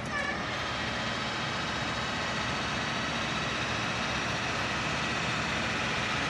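Cugir FU-36 universal milling machine's feed drive running the knee and table upward at rapid traverse: a steady whine of gearing over a motor hum, lifting a little just after the start and then holding even.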